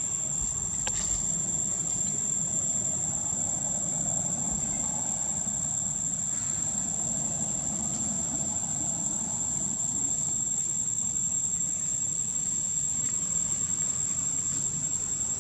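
Steady high-pitched insect drone over a low, steady rumble.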